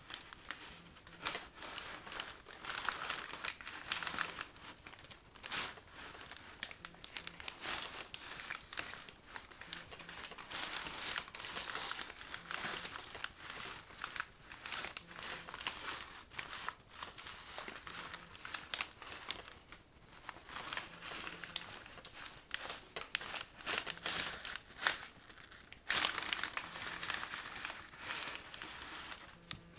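Brown paper bags rustling and crinkling as they are shifted and handled, a dense run of irregular papery crackles with a few short pauses.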